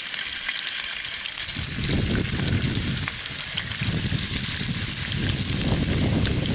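Fish fillets sizzling in hot bacon grease in a skillet on a camp stove as they are laid in one after another. A steady hiss, with a rougher, lower crackling noise joining about a second and a half in.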